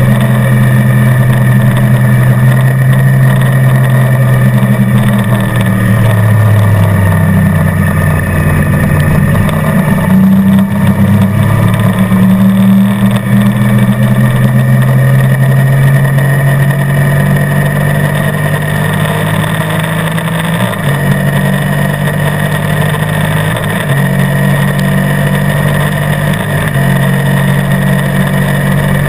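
Sport motorcycle engine running hard on a race track with a passenger aboard. Its note holds steady for stretches and then steps down and back up several times as the gears are changed. Wind rushes over the microphone throughout.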